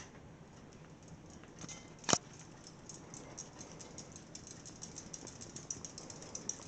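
A sharp click about two seconds in as a Hunter ceiling fan is switched on, then light ticking that gets faster as the fan spins up.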